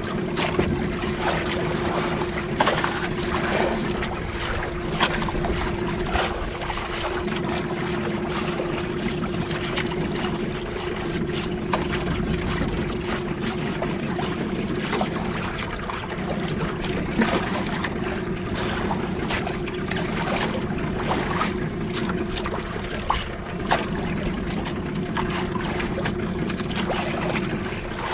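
Outrigger fishing boat's engine running steadily, a constant hum, with water slapping against the hull and scattered small knocks and clicks.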